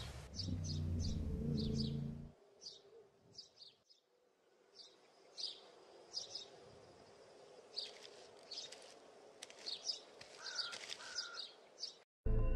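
Small birds chirping in short, scattered calls, after a low steady hum that cuts off abruptly about two seconds in.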